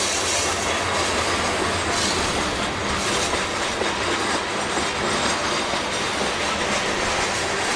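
Covered hopper cars of a freight train rolling past: steel wheels clacking steadily on the rails, with brief high-pitched wheel squeals now and then on the curve.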